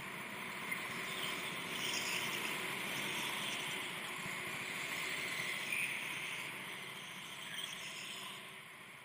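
Several go-karts' small engines running slowly in an indoor hall, a steady hum that fades near the end.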